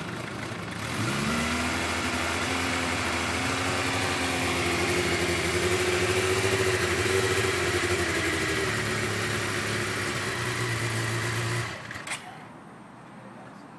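2008 Suzuki GSX-R 750's inline-four engine picking up about a second in, then running with a wavering, uneven pitch before cutting out suddenly near the end. It is a hot restart with a hard start and rough idle after the bike sat following a long ride.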